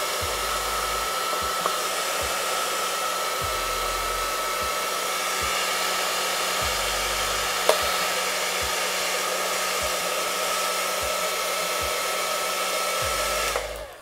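Handheld hair dryer running steadily with a whine over its rush of air, its nozzle blowing into a plastic bottle that holds a twisted lock of hair; a single sharp tick about halfway through, and the dryer switches off just before the end.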